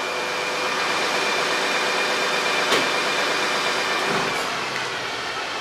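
A machine running steadily, a loud even whir with faint steady tones over it, and one sharp click about two and a half seconds in.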